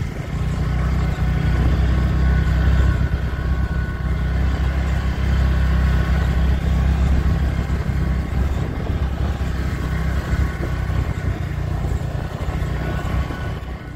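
Scooter being ridden steadily, its engine running under a heavy rush of wind and road noise.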